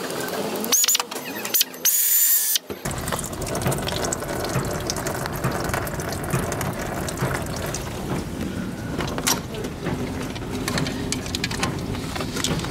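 Engine coolant dripping and trickling from disconnected hoses into a drain pan, with the clicking of a ratchet wrench undoing the throttle body's bolts. Near the start, two brief high-pitched whines.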